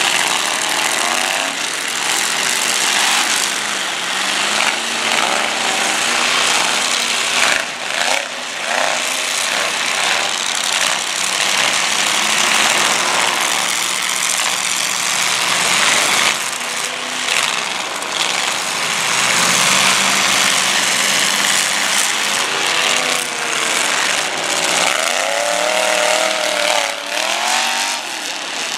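Several demolition derby cars running at once, their engines revving up and down over a steady loud roar. Sharp crashes of car bodies ramming into each other come about 8 and 16 seconds in.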